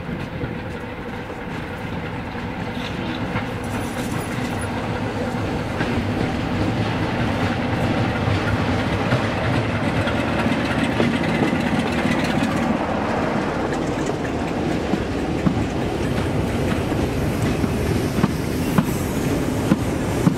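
A diesel train running close by, its engine and wheels sounding together, growing steadily louder as it approaches. Sharp clicks from the wheels over the rail joints stand out near the end.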